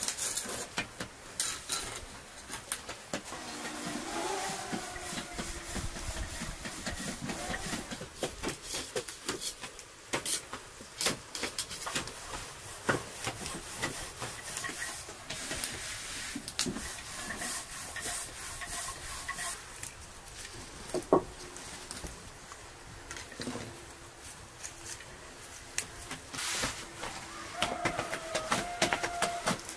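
Rubbing, rustling and tapping of hand food preparation: lavash dough and flatbread being handled and fresh herbs picked over, with many small scattered clicks and one sharper knock about two-thirds of the way through.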